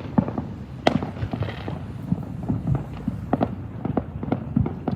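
Many fireworks going off at once in the distance and nearby: an irregular run of sharp cracks and pops, several a second, over a constant low rumble.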